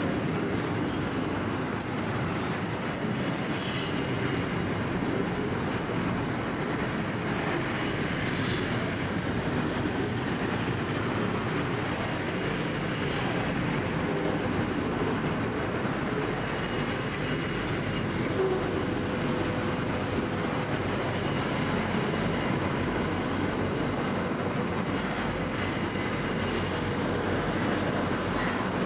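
Long container freight train rolling past: a steady rumble of wagon wheels on the rails, with a faint steady whine in the latter part.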